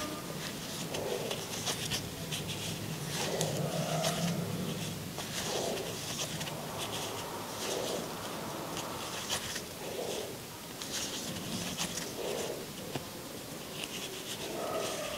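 Crochet hook and yarn being worked stitch by stitch, close to the microphone: soft scratchy rustles of yarn drawn through loops and over the fingers, repeating about once a second.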